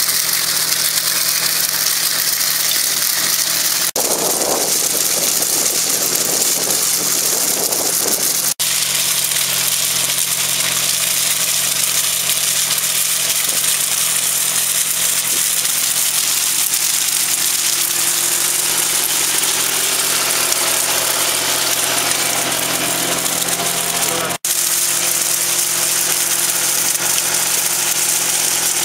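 Tractor engine running steadily while powering rotating vineyard sweeps working the soil under the vines, with a constant hiss over the engine note. The sound drops out for an instant twice.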